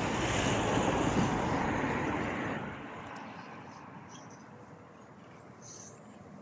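Vehicle noise with no clear pitch, loud at first and fading away after about two and a half seconds, leaving a low steady background of traffic.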